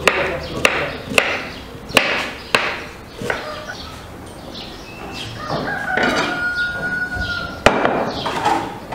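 Knife chopping onion on a wooden cutting board: a run of sharp chops in the first three seconds and one more near the end. Midway through, a rooster crows once in a long held call.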